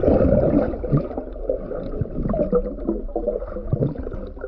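Underwater water noise with gurgling and bubbling, broken by irregular small knocks, loudest in the first second.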